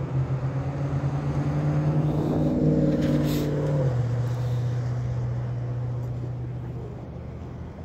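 An engine passing by: its steady hum grows louder, drops in pitch about four seconds in, and fades away.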